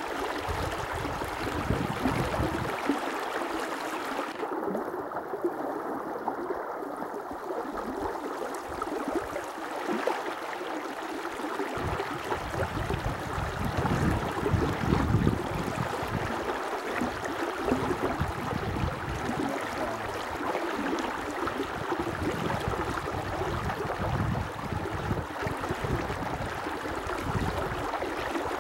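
Flowing river water: a steady rushing noise with irregular low rumbles coming and going.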